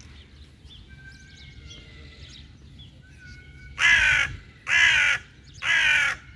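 A crow cawing three times, harsh calls about a second apart, with faint thin whistled bird notes in the background.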